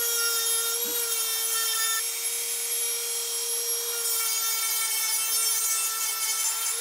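Dremel rotary tool running at a steady high whine while its sanding bit grinds down the tabs inside a chrome-finished metal clamp, the abrasive scraping over the motor's whine.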